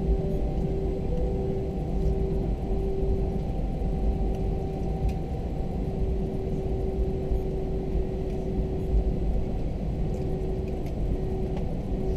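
Airbus A321 cabin noise while taxiing: a steady low rumble from the idling jet engines and rolling airframe, with a steady hum on top.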